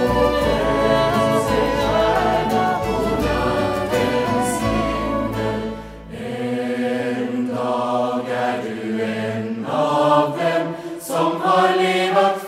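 Swedish folk song with a choir singing sustained chords over instrumental backing with a deep bass. About six seconds in, the bass drops out and the voices carry on alone in separate phrases.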